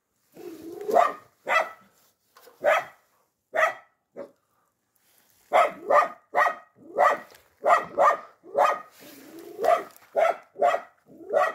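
A dog barking repeatedly, in short sharp barks. There are about five barks, then a pause of about a second, then a faster run of a dozen more.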